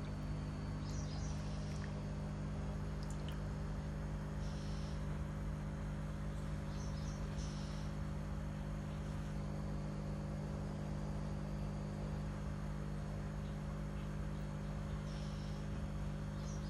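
Steady low hum, unchanging throughout, with a few brief faint high chirps now and then.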